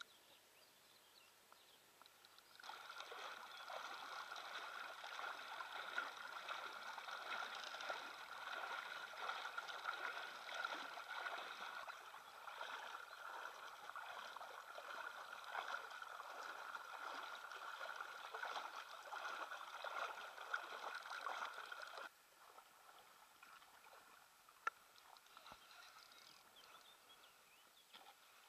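Water rushing and splashing, a steady crackly noise that starts a couple of seconds in and cuts off abruptly after about twenty seconds.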